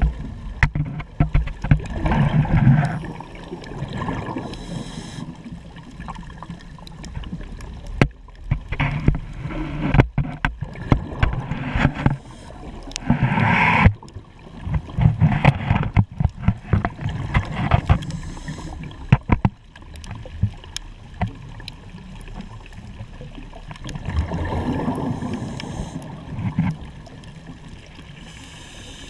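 Scuba diver breathing through a regulator underwater: bursts of exhaled bubbles rumbling and crackling, a few seconds apart, with a hissing inhale between them.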